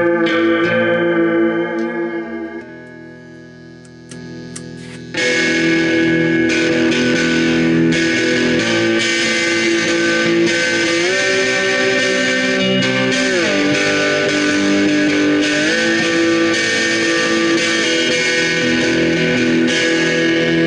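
Electric guitar played through a chain of effects pedals into a Peavey amp. Held notes die down for a couple of seconds. About five seconds in, a full, loud chord comes in suddenly and rings on, changing chord a few times.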